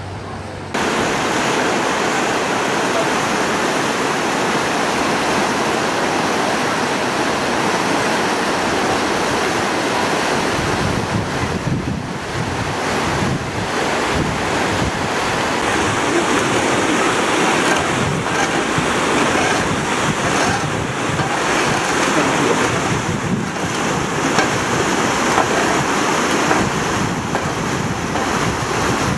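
Swollen, muddy flood-stream rushing fast over rocks and rubble: a loud, steady noise of running water that cuts in abruptly about a second in.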